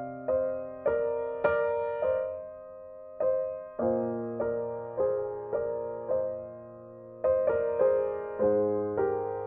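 Background piano music: a slow melody of single struck notes, each ringing and fading, roughly one to two notes a second with a brief pause about three seconds in.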